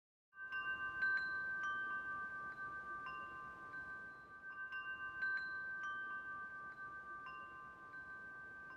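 Tubular metal wind chime ringing: its tubes are struck at irregular intervals, and several overlapping bell-like tones ring on, growing fainter toward the end.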